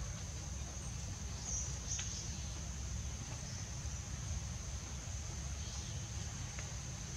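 Forest insects droning in one steady high-pitched tone over a low rumble, with a few faint light clicks from bamboo poles being handled.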